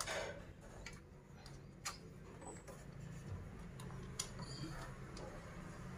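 Faint, sharp clicks, roughly one a second but not evenly spaced, over a low steady hum.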